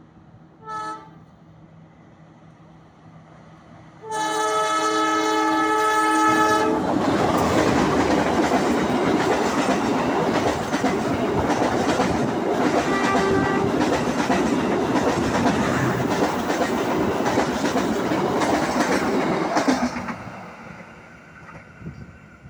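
A passenger train hauled by a KAI diesel locomotive passing close on the adjacent track. A short horn toot comes first, then a long horn blast about four seconds in. The loud rush and clatter of the passenger cars going by follows and dies away near the end.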